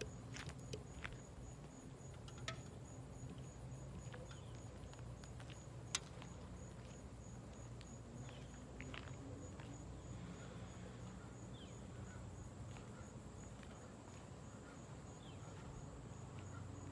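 Quiet outdoor background: a steady low hum with a faint high chirp repeating about three times a second, and scattered light clicks, one sharper click about six seconds in.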